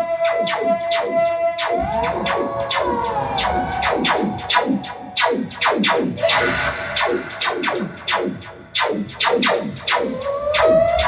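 Electronic synthesizer sounds: quick falling-pitch blips, several a second, over a held tone that bends up and back down about two seconds in and rises again near the end.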